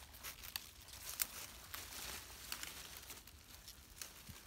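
Foliage rustling and small leafy shoots snapping as young leaves are picked by hand from shrubs: an irregular run of light snaps and rustles.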